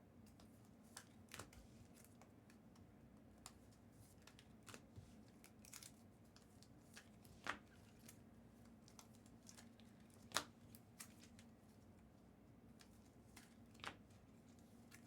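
Near silence with faint, scattered light taps and clicks of small objects being handled, a few sharper ones spread through, over a low steady hum.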